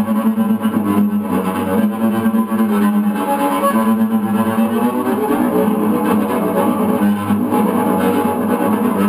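Cello played with a bow, the notes running on without a break.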